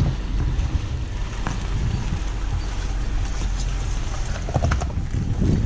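Range Rover Sport driving slowly along a muddy, rocky dirt track, its engine and tyres giving a steady low rumble over gravel, heard close to the front wheel from outside the body, with wind buffeting the microphone.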